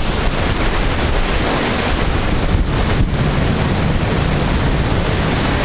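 Glacial meltwater stream rushing over rocks below the glacier, a steady loud rush of water, with wind buffeting the microphone.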